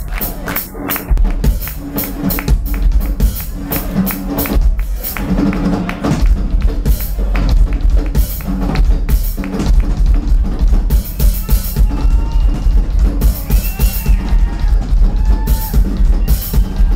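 Rock drum kit played live and hard, likely as a drum solo: a dense, driving run of kick drum under snare, tom and cymbal hits.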